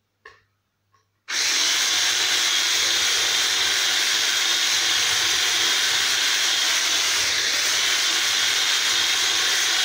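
Handheld electric whisk (a stick blender with a whisk attachment) switched on about a second in, then running steadily as it whisks cake batter in a plastic bowl.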